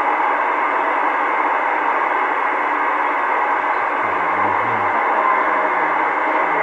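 CB radio loudspeaker giving out a loud, steady hiss of static on the 11-metre band, with no voice on the channel.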